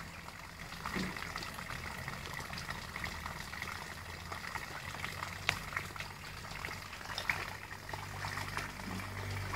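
Water bubbling and trickling, with a few sharp clicks scattered through it.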